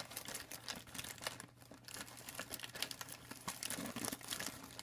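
Plastic packaging being handled and crinkling: a continuous run of small, soft crackles.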